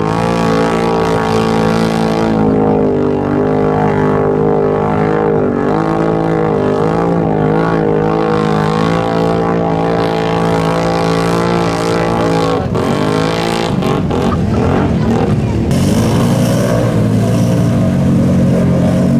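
Off-road vehicle engines (ATV or UTV) running steadily. Their pitch dips and rises a few times with the throttle, with a marked drop and climb about thirteen seconds in.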